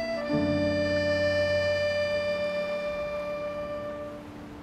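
Background music: a held chord of sustained instrument tones that swells in just after the start and slowly fades away.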